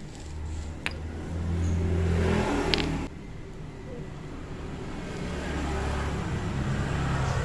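A motor vehicle engine running, revving up a little after a second in, dropping off suddenly at about three seconds, then rising slowly again.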